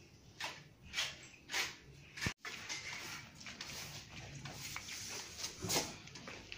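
Soft-bristled broom sweeping across porcelain floor tiles: repeated short brushing strokes, with a brief drop-out a little over two seconds in.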